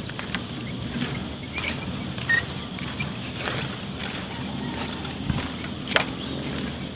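Footsteps on the slatted plank deck of a hanging footbridge: irregular knocks and clacks of the slats underfoot over a steady low rumble, with the sharpest knock about six seconds in.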